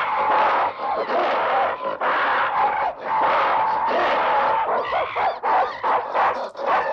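Chimpanzee and baboon calls, harsh screams and bark-like calls one after another, cut together as ape-man cries. The calls become shorter and choppier about five seconds in.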